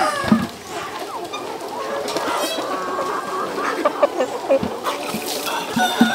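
A large flock of chickens clucking and calling over one another, with many overlapping short calls and a few brief sharp knocks.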